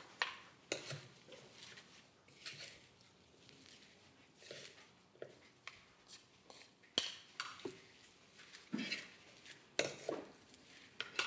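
Kitchen utensils clinking and scraping against cookware as food is stirred, in scattered light clinks and taps.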